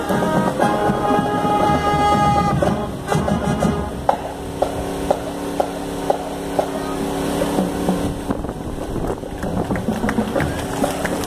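Marching band brass holding a chord that breaks off about three seconds in, followed by a steady clicking beat about two a second, like a drum line's stick clicks keeping time.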